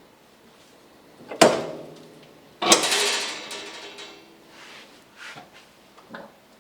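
Two loud knocks about a second apart, the second a clang that rings on and fades over about a second and a half.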